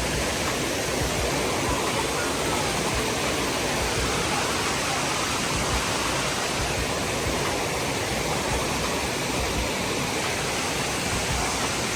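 Steady rush of a large man-made waterfall, with water pouring down stepped concrete walls.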